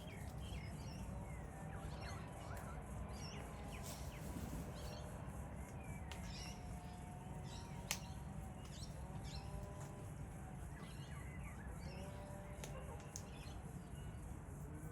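Wild birds chirping and calling over a steady low outdoor background: many short high chirps, with several wavering whistled calls from about six seconds on. There is one sharp click about eight seconds in.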